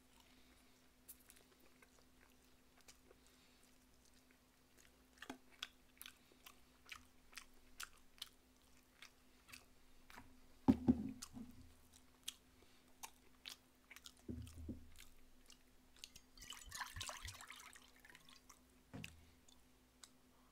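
A person chewing kodari gangjeong, sauced fried half-dried pollock, close to the microphone: a run of wet chewing clicks and smacks, two dull knocks around the middle, and a short rustling hiss near the end. A faint steady hum runs underneath.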